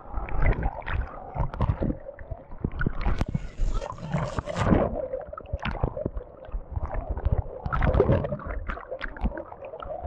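Churning wave-river water sloshing, gurgling and splashing against a camera held at the waterline, in irregular surges, with a hissing rush of spray from about three seconds in that cuts off sharply near five seconds.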